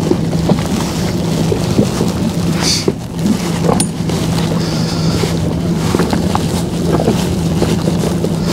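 Motorboat under way: its engine running with a steady hum, over wind and water noise.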